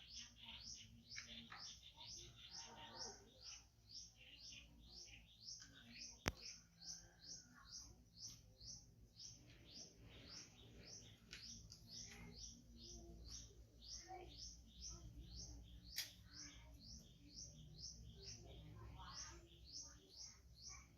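A bird chirping over and over, faint, about three short falling chirps a second. A sharp click about six seconds in and another about sixteen seconds in.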